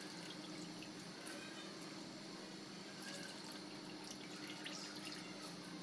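Soaked basmati rice being tipped into boiling broth in an aluminium pot: faint wet splashing and bubbling with small scattered ticks, over a low steady hum.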